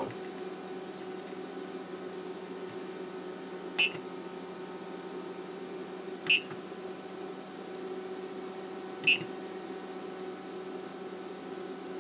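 Three short electronic beeps from the 3D printer's LCD controller buzzer, about every two and a half to three seconds, as its knob is clicked through the menus. A steady electrical hum runs underneath.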